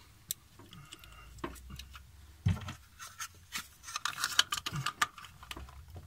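Plastic cover of a HYYP IP Connect alarm module being fitted and pressed shut by hand: a scatter of light clicks and knocks with rubbing, busiest in the second half.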